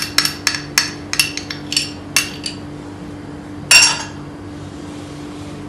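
Metal spoon tapping and clinking against a bowl and a small container as minced garlic is scraped into a chopped salad: a quick run of light taps, then a single louder clink a little before four seconds.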